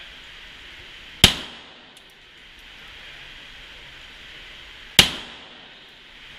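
Two shots from a Ruger Mark III .22 LR semi-automatic pistol, nearly four seconds apart, each a sharp crack followed by a short echo off the indoor range.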